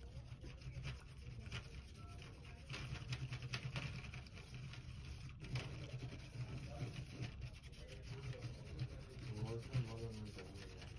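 Sponge-tipped ink bottle rubbing and dabbing over a stencil on a badminton racket's strings: a faint, uneven scratchy rubbing over a steady low hum.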